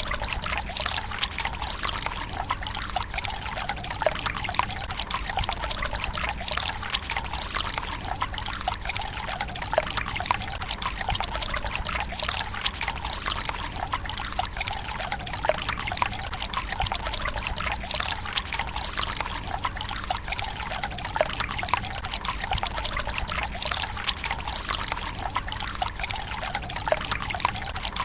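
Water running from a bamboo spout into the stone basin of a Japanese tsukubai: a steady trickling pour and splash, flecked with many small irregular drips and spatters.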